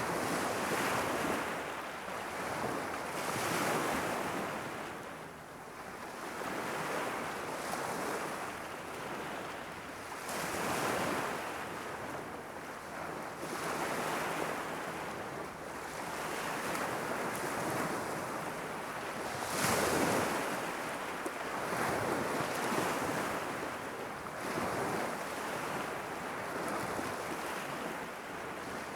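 Irish Sea waves washing against a rocky shore in a steady rhythm of swells every two to three seconds, one noticeably stronger about two-thirds of the way through, with some wind on the microphone.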